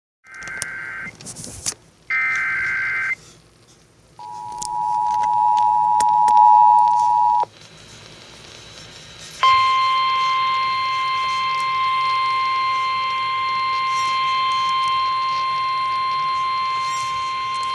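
Emergency Alert System tones heading a severe thunderstorm warning on the radio. Two short buzzy SAME data bursts come first, then the two-tone attention signal for about three seconds. After a short gap a single steady alert tone runs for about nine seconds.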